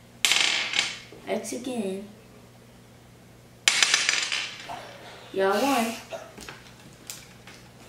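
Hard plastic game pieces and hands clattering and tapping on a glass tabletop, the loudest clatter about halfway through, with short children's exclamations in between.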